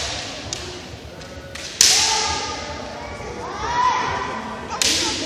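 Kendo bout: sharp cracks of bamboo shinai strikes and thumps of stamping feet on a wooden gym floor, mixed with drawn-out kiai shouts from the fencers. The loudest crack comes a little under two seconds in and rings on in the hall, and another falls near the end.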